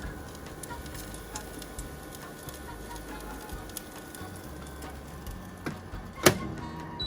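Scattered light clicks and taps over a faint steady hum, with one sharp click about six seconds in, the loudest sound here.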